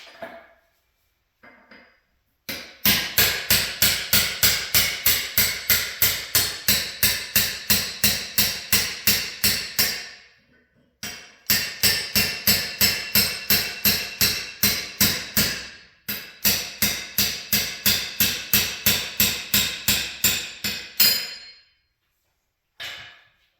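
Hand hammer striking steel in three long runs of rapid, evenly spaced ringing blows, about three or four a second, driving a wide formed hinge out of a press die.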